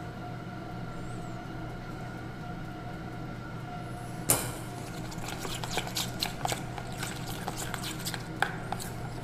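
A metal spoon clinks sharply once against a stainless steel bowl about four seconds in, then stirs and scrapes a thick chocolate-hazelnut and peanut butter mixture around the bowl in many small clicks and scrapes. A steady low hum lies underneath.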